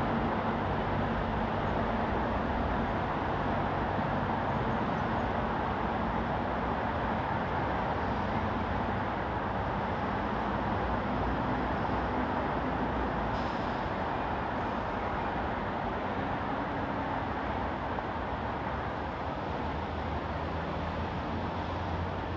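Steady city road traffic: a continuous wash of tyre and engine noise from passing vehicles, with low engine hum swelling and fading as heavier vehicles go by.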